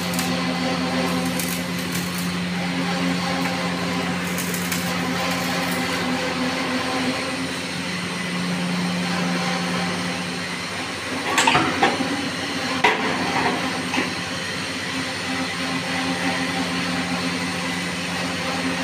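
Steady electrical hum of arc welding equipment. About two-thirds of the way through comes a brief cluster of sharp metal knocks and clanks, then three single knocks.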